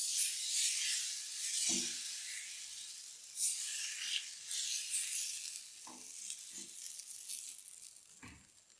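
Thin flour-and-water tortilla batter sizzling in a hot nonstick frying pan as it is spread in circles with a spoon, with a few soft knocks of the spoon against the pan. The sizzle starts suddenly and fades near the end.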